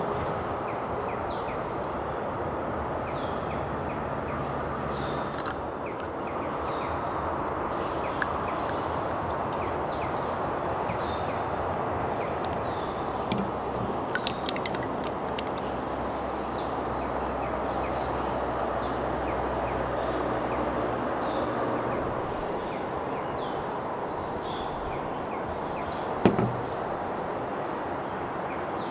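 Steady outdoor background noise with short bird chirps coming again and again, a few small clicks about halfway through, and a single sharp knock near the end.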